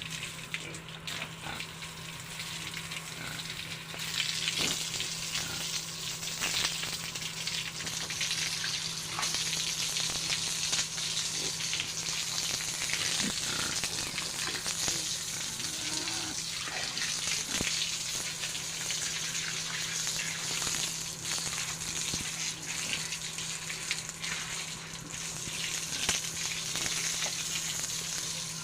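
Water spraying from a hose to wash down pigs and their pen, a steady hiss that gets louder about four seconds in, over a low steady hum.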